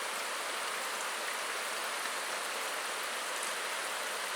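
Steady rush of a stream running over rocks, an even hiss with no breaks.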